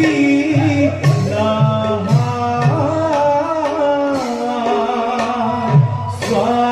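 Bhaona music: a voice singing a wavering melody over khol drum strokes whose bass notes bend in pitch, with bright taal cymbal strikes.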